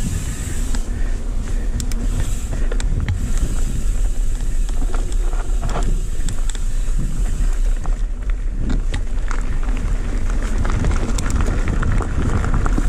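Wind rumbling on a handlebar-mounted camera's microphone as a mountain bike rolls fast down a dirt and gravel trail, with tyre noise and scattered sharp clicks and rattles from the bike jolting over bumps.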